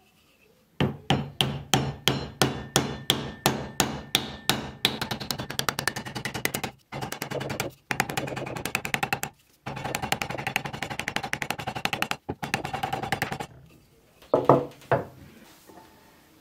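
Repeated hammer-like strikes, about four a second, which quicken after about four seconds into fast, machine-like rapid striking in several bursts broken by short pauses. The striking stops near the end and is followed by a couple of separate knocks.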